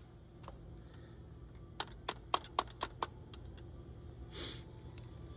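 A ratchet on the camshaft bolt clicking: a quick run of about six sharp clicks about two seconds in, with a few fainter ticks around them. A short faint hiss follows a little after four seconds.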